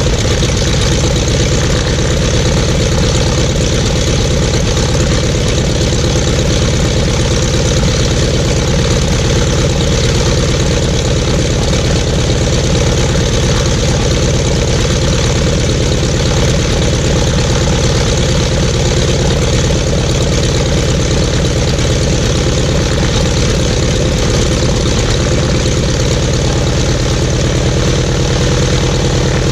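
Seven-cylinder Jacobs R-755-B2 radial engine of a 1959 Cessna 195B running at a steady idle, its propeller turning.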